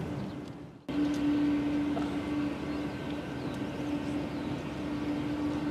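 Boeing 777-200's twin turbofan engines running at taxi power as the airliner rolls along the taxiway: a steady jet drone with a constant mid-pitched hum. Less than a second in, the sound dips and then cuts back in abruptly, louder.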